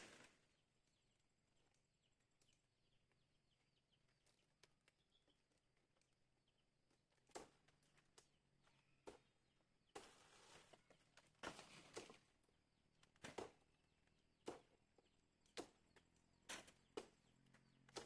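Faint sharp clicks and knocks, about a dozen at irregular intervals, over near silence. They start about seven seconds in.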